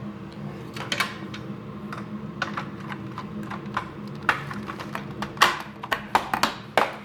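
Plastic parts of a vacuum cleaner's switch housing clicking and knocking as they are handled and snapped together: a few sharp clicks about a second in, then a quicker run of clicks in the second half.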